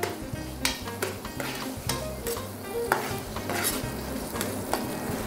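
Chopped vegetables sizzling as they fry in a nonstick frying pan, with scattered clicks and scrapes from a spatula stirring them against the pan.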